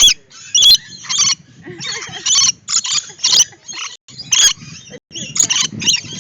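A flock of birds screeching: a rapid run of short, harsh calls, roughly one or two a second, with no pause between them.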